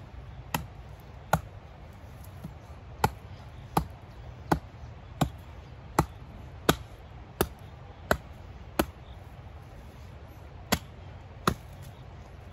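Hatchet chopping dead branches for firewood: a steady run of sharp blows, about one every 0.7 seconds, with a short pause about three quarters of the way through before two more strikes.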